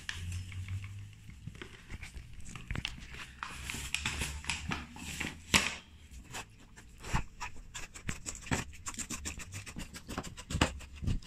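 Wooden spoon stirring and scraping a stiff shortbread mixture of butter, sugar and flour in a bowl: irregular scrapes and knocks that come faster and denser in the second half.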